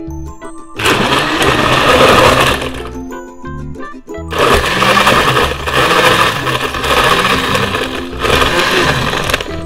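Countertop blender running in two bursts as it blends a dragon fruit shake: about two seconds, a pause of about a second and a half, then about five seconds more, stopping near the end.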